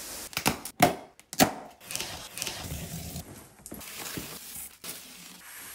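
Cardboard TV packaging being handled and opened: three sharp knocks and cracks in the first second and a half, then softer scrapes and rustles of cardboard.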